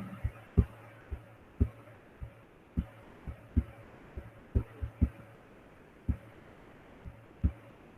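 Irregular soft, low knocks and taps, about one or two a second, from a pen knocking on the writing surface while figures are written out.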